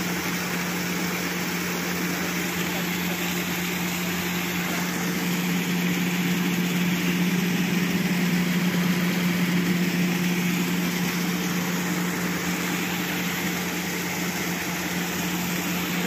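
Sany 135 excavator's diesel engine idling steadily, a little louder in the middle, over the rush of water gushing from a broken water line into the trench.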